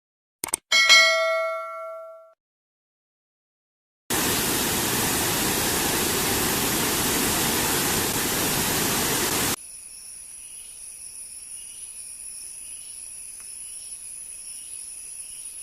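A couple of clicks, then a single bell-like ding that rings out and fades over about a second and a half. After a silent gap a loud, steady static-like hiss starts suddenly, runs about five seconds and cuts off abruptly, leaving a quieter hiss with faint high steady whines.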